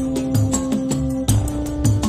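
Middle Eastern-style music with plucked strings over sustained bass notes and a steady percussion beat of about three strikes a second, played back as a sample through in-ear monitors.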